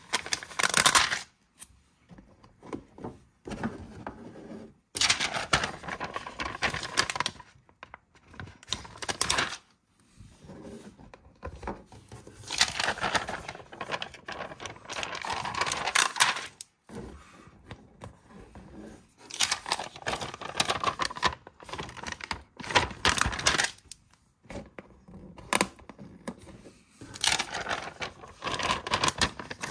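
Handling of a clear plastic sheet of repositionable stickers: the sheet crinkling and stickers peeling off and being pressed on, in irregular bursts with small clicks and taps.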